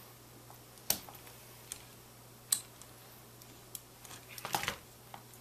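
Scattered sharp clicks and taps of pliers and small metal hardware being handled while nuts on a robot arm's link rods are held and tightened, with a quick flurry of clicks a little after four seconds in.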